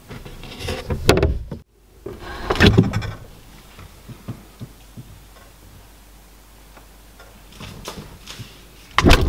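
A refrigerator door being opened and the fridge contents handled, in short noisy bursts with a few light knocks and clicks. The sound cuts out abruptly about a second and a half in, and a louder knock comes near the end.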